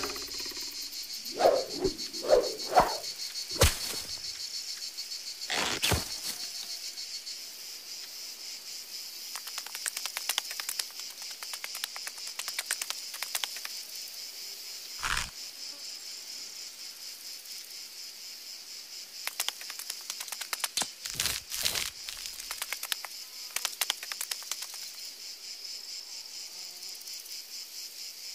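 Steady high chirring of insects, with a few short squeaky blips near the start and scattered clicks and taps through the rest.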